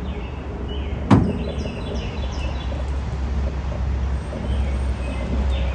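A single sharp knock about a second in, from handling the surface cleaner at the tailgate, over a steady low rumble, with birds chirping repeatedly.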